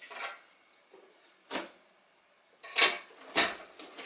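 A box and parts being handled: four short knocks and rustles, the loudest about three seconds in.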